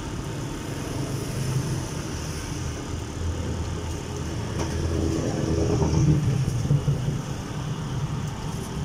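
Road traffic: vehicle engines running past close by, a steady low rumble that swells as one vehicle passes, about five to six seconds in.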